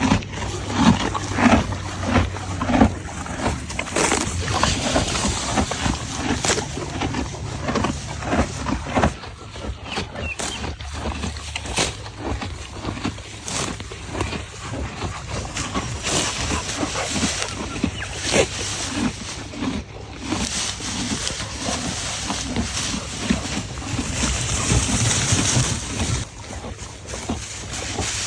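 Horses chewing and munching feed close up: a continuing run of short chewing sounds in quick succession.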